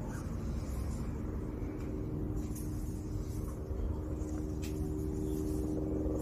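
Steady low rumble with a steady hum of a running motor.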